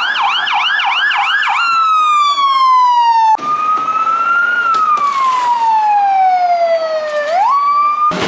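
Fire engine's electronic siren: a fast yelp of about five sweeps a second, then slow falling and rising wails. It cuts off abruptly twice, once about three seconds in and again near the end.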